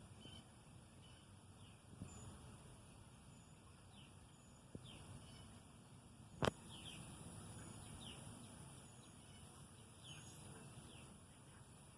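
Faint back-yard ambience: scattered short, high bird chirps over a steady high hiss. A single sharp click about halfway through, with two softer ticks earlier.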